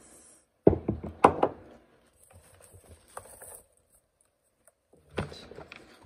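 Knocks and thuds of objects being handled and set down on a wooden tabletop: a cluster of sharp knocks about a second in and another group near the end, with a faint high hiss between them.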